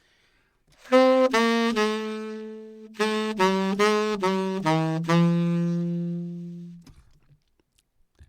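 Tenor saxophone playing two short descending phrases in forte-piano: each note is attacked strongly and then quickly pulled back. The last note of each phrase is held and fades away.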